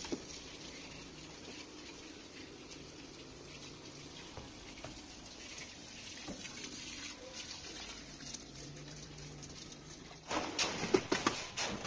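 Water spraying from a garden hose nozzle onto plywood formwork and reinforcing mesh, wetting it before the concrete pour: a faint, steady hiss. About ten seconds in, louder irregular knocks and clatter take over.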